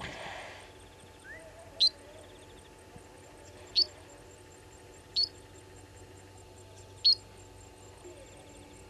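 A bird repeating a single short, sharp high chip four times, roughly every two seconds, over a low bush background. A brief rush of noise comes right at the start.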